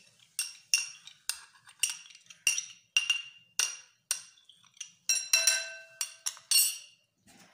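A metal spoon clinking repeatedly against a bowl while scraping out thick yogurt: sharp ringing clinks, about three a second. The clinks ring longer and louder a little past the middle, then stop shortly before the end.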